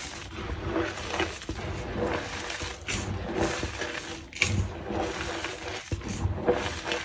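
Clumps of reformed gym chalk crumbled and squeezed by hand into a pile of loose chalk powder: irregular soft crunching and gritty rustling, with a couple of sharper cracks.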